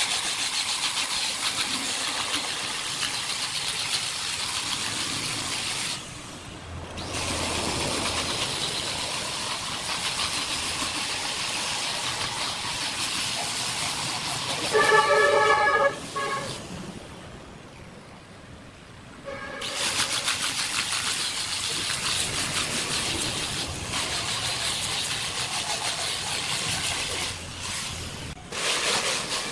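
Angle grinder with a sanding disc running and sanding a carved wooden surface, the sound dipping briefly where the disc comes off the wood. About halfway through there is a brief, loud pitched squeal, followed by a few seconds of quieter sound before the sanding resumes.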